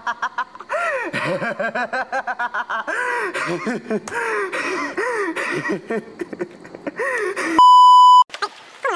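A young man sobbing and wailing in rapid, gasping bursts. Near the end comes a loud, steady, high test-tone beep of about half a second, the kind that goes with TV colour bars.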